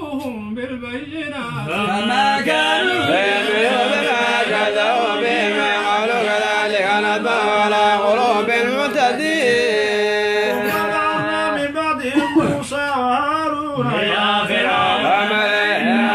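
A man reciting the Quran in Arabic in the melodic tajweed style, holding long, wavering, ornamented notes, with a short pause for breath about twelve seconds in.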